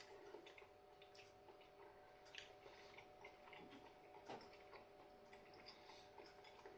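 Near silence: room tone with a faint steady hum and faint scattered clicks.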